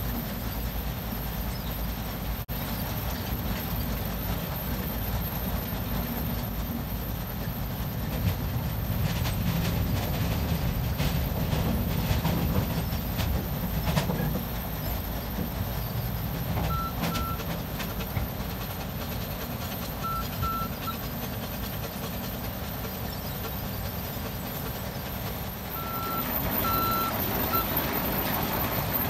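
Low, steady rumble of a truck and heavy machinery. A truck's reverse alarm gives short beeps in a few brief runs from about the middle onward.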